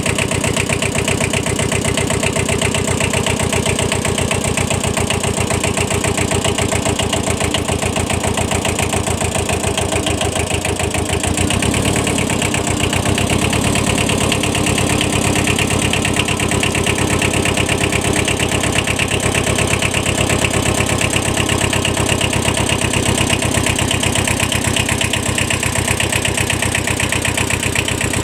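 Kubota 5001 compact 4x4 tractor's small diesel engine running steadily, its note shifting briefly about halfway through.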